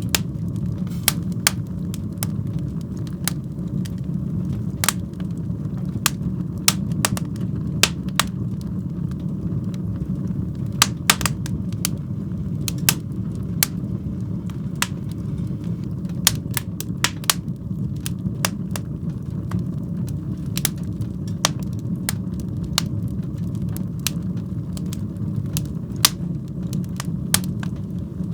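Fire burning in a fireplace: a steady low rumble of flame with sharp, irregular crackles and pops, sometimes several in quick succession.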